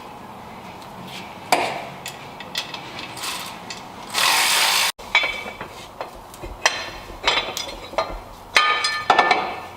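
Hand tools working on a car's engine mount: a socket ratchet clicking and metal tools clinking and knocking. About four seconds in there is a hiss-like burst of under a second that cuts off abruptly.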